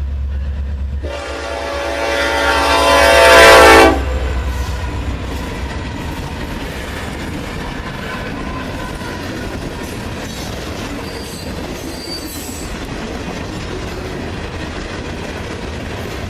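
Diesel locomotive's air horn sounding one loud chord for about three seconds over the low rumble of the engine, then cutting off sharply. The train then rolls past with a steady noise of wheels on rail.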